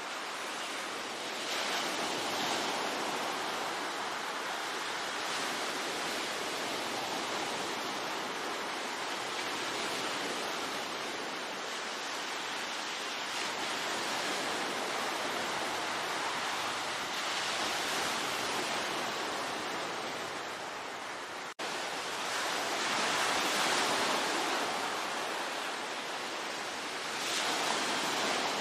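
Sea waves breaking and washing on the shore, a continuous surf hiss that swells louder every few seconds as each wave comes in. The sound cuts out for an instant about three quarters of the way through, then carries on.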